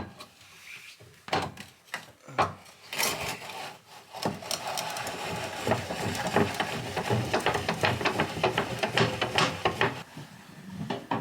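Caravan corner steady being wound with a crank handle. A few knocks come first, then from about four seconds in there is a steady grinding rattle of rapid clicks as the leg's screw turns, which stops about a second before the end.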